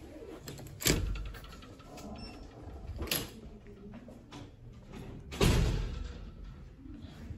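Sharp knocks and clunks of a metal-framed glass door with a push bar being pushed open. There are three knocks about two seconds apart, and the last is the loudest, with a short ring after it.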